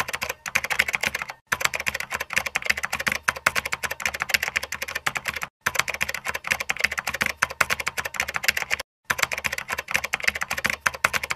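Fast typing on a computer keyboard: a dense, rapid run of key clicks, broken three times by brief silent gaps.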